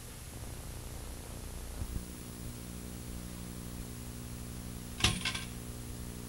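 Steady low hum and hiss from VHS tape playback, with a thin high whine. About five seconds in comes a short clattery rattle of clicks.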